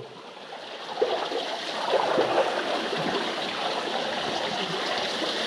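Water sloshing and splashing around someone wading through a deep pool in a narrow sandstone slot canyon. It starts quieter and builds over the first second or two, then holds steady.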